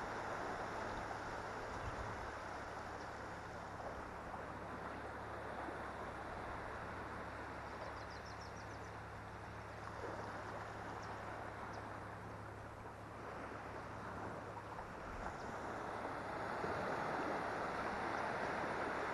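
Steady rushing of wind and shallow water, growing a little louder near the end, with a low steady hum underneath.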